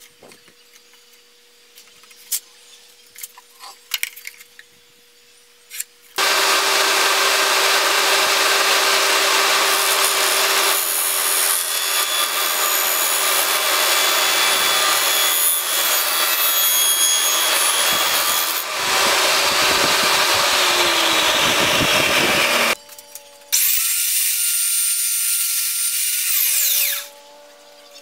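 Light knocks of wood being handled for about six seconds, then a table saw running and cutting a thin board for about sixteen seconds, stopping abruptly. After a short break another few seconds of a power tool running with a steady whine, fading out near the end.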